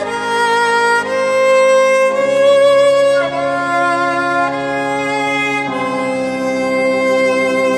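Violin bowed in long held notes of a slow melody, over low sustained keyboard chords that change about two seconds in and again near six seconds.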